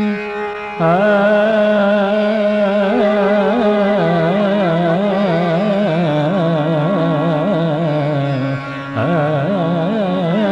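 Carnatic music in raga Shubhapantuvarali: a single melody line, wavering with heavy ornaments, over a steady drone. The melody enters about a second in and breaks off briefly near the ninth second.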